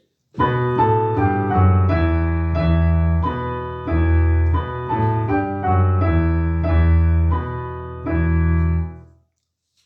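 Piano playing a slow melodic passage over sustained bass notes, with a new chord or note about every half second. It stops about nine seconds in.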